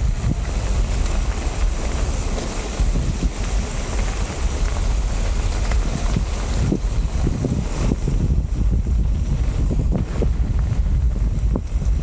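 Wind buffeting the microphone with a heavy low rumble and uneven gusts, with scattered short knocks and rattles, as from a bike-mounted or helmet camera while riding.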